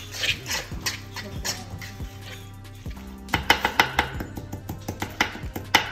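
Kitchen knife chopping fresh herbs on a wooden cutting board: quick, regular chops, about four a second, starting about three seconds in. Background music with a steady bass runs throughout.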